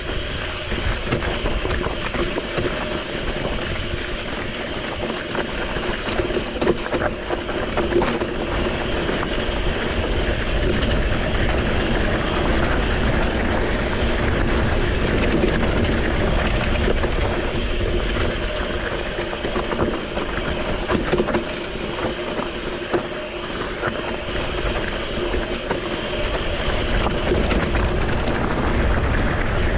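Mountain bike descending a rough, loose volcanic trail: the tyres rolling and skidding over gravel and rock, with a steady rush of noise and many small knocks and rattles from the bike throughout.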